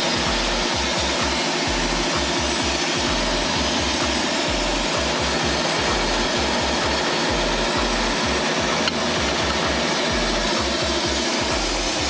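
Wood-Mizer LT15 Wide electric band sawmill running steadily as its blade cuts through a log, heard under background music with a steady, rhythmic bass line.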